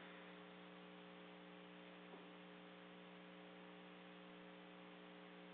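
Near silence: a faint steady electrical hum with hiss from an open phone line on a conference call.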